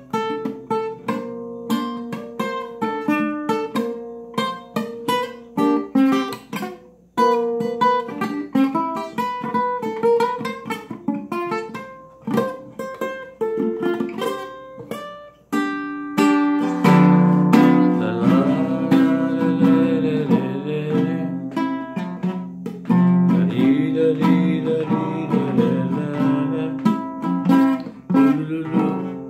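Acoustic guitar played solo, an instrumental break: single picked notes of a melody at first, then, about halfway through, louder strummed chords.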